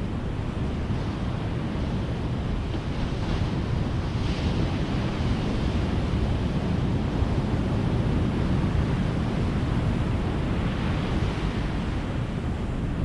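Ocean surf: waves breaking and washing up a beach in a continuous rush of noise that swells a little about four seconds in and again near eleven seconds.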